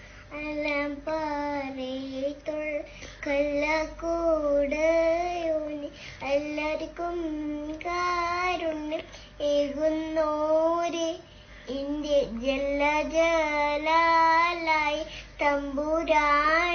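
A young girl singing a song to a baby: one child's voice in sung phrases with held, wavering notes and short breaks between them.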